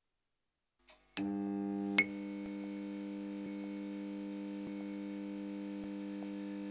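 A steady low electronic drone, a held chord of several tones, starts about a second in after silence, with a sharp click about two seconds in.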